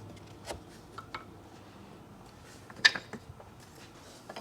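Scattered sharp wooden clicks and knocks as beehive frame parts are handled and end bars are pressed onto top bars; the loudest knock comes about three seconds in and another near the end.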